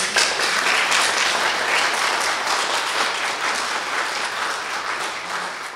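Audience applauding, many hands clapping together, easing slowly toward the end.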